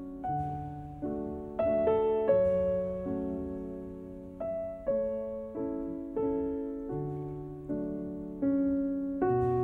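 Background piano music: a slow, gentle tune of notes and chords struck at an even pace, each fading before the next.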